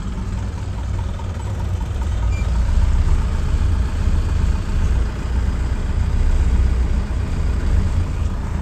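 Safari vehicle's engine running with a deep, steady rumble, a little louder from about two seconds in.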